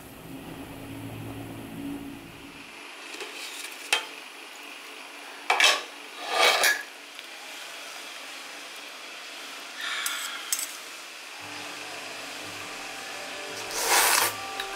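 A metal spoon clinks and scrapes against a pot of soup, with a handful of separate knocks. Near the end there is a louder sound of someone slurping soup from a spoon.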